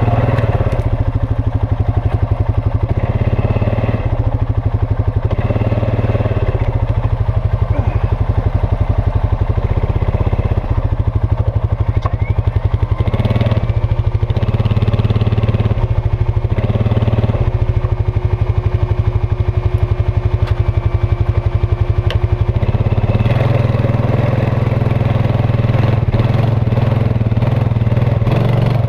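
Quad ATV engine running at low speed as it pulls up a rutted dirt trail, its note shifting every second or two with the throttle. About 23 seconds in, the engine note grows heavier and fuller.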